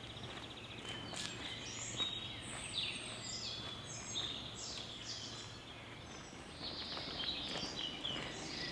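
Birds singing and chirping: many short, high whistled notes and quick trills over faint background noise.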